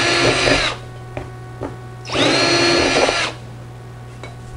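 Cordless drill with a 9/64 bit drilling into the top of a diecast box, in two short bursts of about a second each, the second about two seconds in. Each burst's motor whine rises as the drill spins up and then holds steady; this is the holes being enlarged and cleaned up. Light clicks from handling the box fall between and after the bursts.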